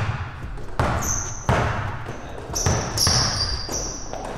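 A basketball being dribbled on an indoor court, one sharp bounce roughly every second, each echoing briefly in the gym. Between the bounces, sneakers squeak shrilly on the court floor several times.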